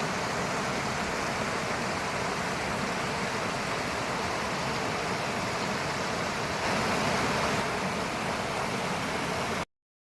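Water of the Indravati river rushing steadily, an even hiss that cuts off suddenly near the end.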